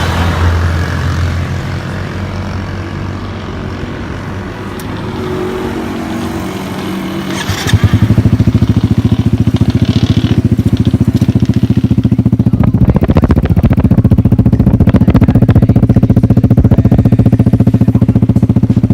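125 cc motorcycle running through an Exos R5 exhaust with the dB killer removed, a bassy sound. About eight seconds in it becomes suddenly much louder, with a fast, even pulsing that then holds steady.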